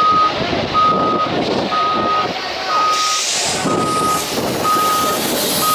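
Heavy-machinery reversing alarm beeping steadily, about one beep a second, over continuous machinery noise and voices.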